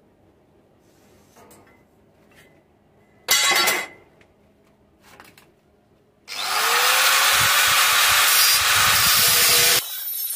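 Angle grinder spinning up with a rising whine, then cutting thin sheet metal with a loud steady grinding that cuts off suddenly near the end. Before it, a few faint scratches and one brief loud clatter about three seconds in.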